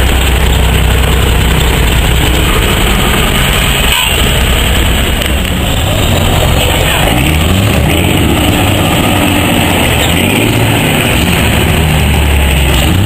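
Heavy truck diesel engine running loud, its revs stepping up and down in the second half. A single sharp knock about four seconds in.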